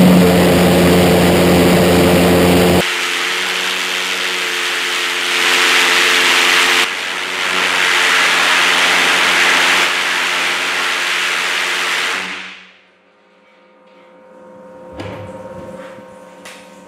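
Diesel-fuelled twin Viper valveless pulsejet running at full power on a thrust stand: a loud, steady drone with a low hum. It is shut off about twelve seconds in, and the sound dies away within about half a second.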